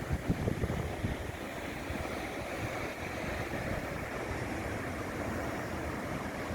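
Steady wash of surf on a beach, with wind buffeting the microphone in a few gusts during the first second or so.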